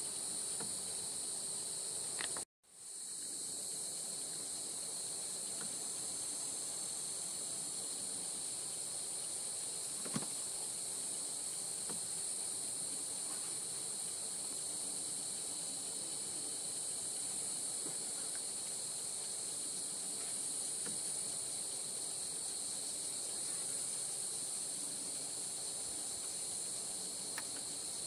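Steady, high-pitched chorus of insects buzzing in the bush, unbroken except for a split-second dropout about two and a half seconds in.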